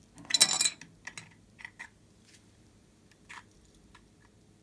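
Round clear plastic slime container being picked up and handled: a loud quick flurry of plastic clicks and knocks about half a second in, then a few lighter separate clicks.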